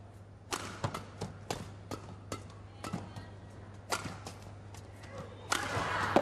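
Badminton rally: a run of sharp racket strikes on the shuttlecock and thuds of feet on the court, several a second at times. About five and a half seconds in, crowd noise swells as the rally ends.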